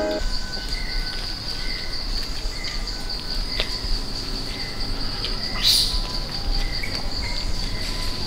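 Steady, high-pitched drone of insects in tropical forest, with faint short bird chirps. About five and a half seconds in, a brief, louder rasp cuts across it.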